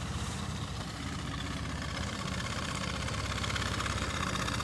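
25 hp outboard motor on a jon boat running steadily at low speed, with a low, even throb, growing slightly louder in the second half.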